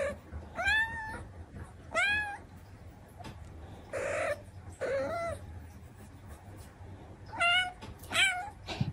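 Domestic tabby cat meowing repeatedly: about five short calls that rise and fall in pitch, with a few hoarser breathy sounds between them.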